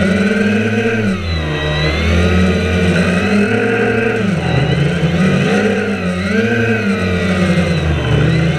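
Small drone's motors and propellers whirring in flight, the pitch rising and falling again and again as the throttle changes.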